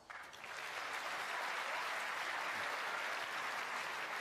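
Audience applause in a snooker arena: dense clapping that builds up over the first half second and then holds steady.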